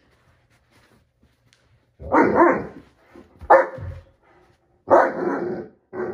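A Great Dane barking up at a cat: four barks about a second apart, starting about two seconds in.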